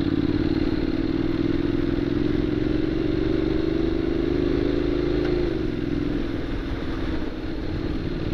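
Honda NC750X motorcycle's parallel-twin engine running steadily under way. Its note climbs slowly, then drops about five and a half seconds in and holds at the lower pitch.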